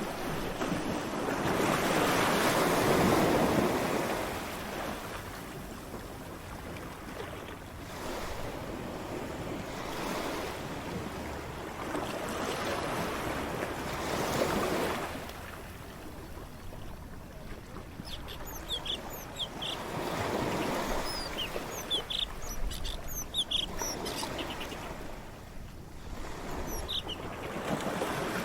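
Ocean waves breaking and washing in slow surges of noise, the biggest swell about two to four seconds in. Short high chirps come and go through the second half.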